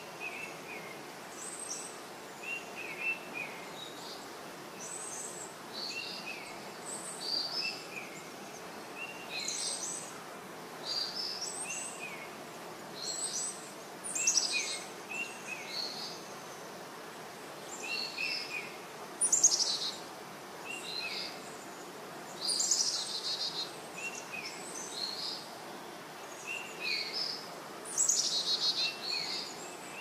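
Birds chirping and calling in short repeated phrases, brief falling notes and higher whistles every second or two, over a steady hiss of forest ambience; the calls get louder a few times in the second half.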